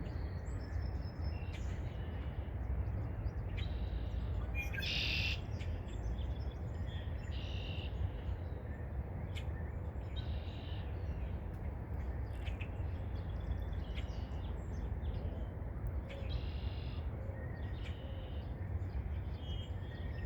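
Birds calling: short, separate high-pitched chirps scattered throughout, the loudest and harshest about five seconds in, over a steady low background rumble.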